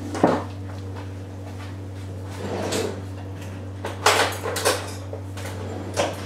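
Knocks and clatters of kitchen cabinetry being handled. There is a click near the start and a soft rustle midway, then a quick run of sharp knocks about four seconds in and two more near the end, all over a steady low hum.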